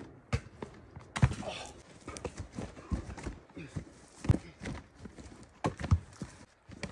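Footsteps and shuffling on dry forest ground, broken by several sharp knocks as a wooden stick is swung like a bat at a ball. The loudest knock is about a second in, with more near the middle and the end.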